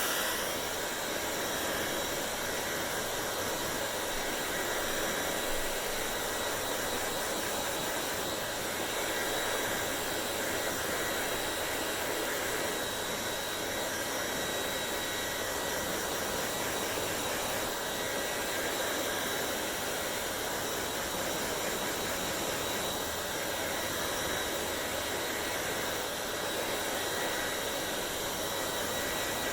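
Hair dryer running steadily: a constant rush of air with a faint high motor whine.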